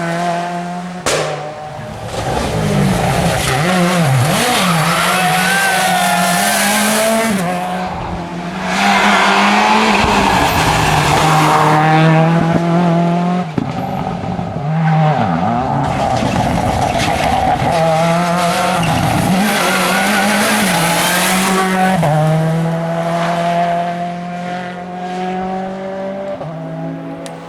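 Seat Córdoba WRC rally car's engine revving hard, its note climbing and dropping again and again through gear changes and lifts, with loud rushing surges of noise as the car drives at speed.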